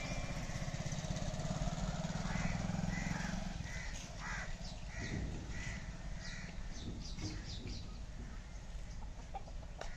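A crow cawing repeatedly, short calls about every half second from a couple of seconds in. Under the first few seconds, a motor vehicle engine rumbles and then fades away.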